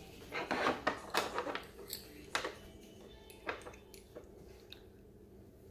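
Small hard plastic toy parts clicking and rattling as Playmobil pieces are handled on a table: a quick run of clicks in the first second or two, then a few single clicks.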